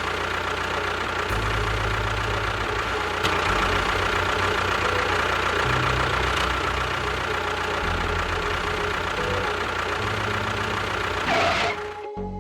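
A motor running steadily, which stops abruptly near the end.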